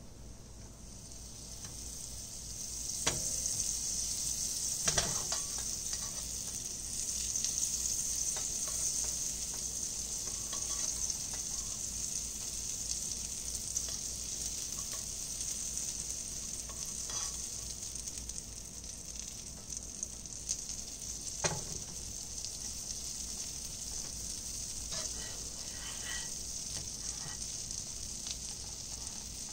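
Butter sizzling as it melts and foams in a hot nonstick frying pan. The sizzle builds over the first few seconds and then holds steady, with a few sharp knocks of the slotted spatula against the pan.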